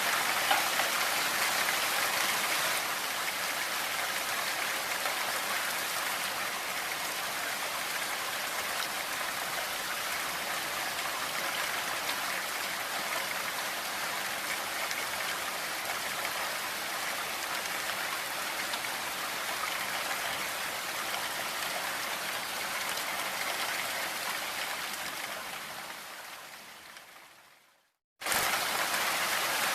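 Steady rain, an even hiss of falling drops. Near the end it fades out to a moment of silence, then starts again abruptly.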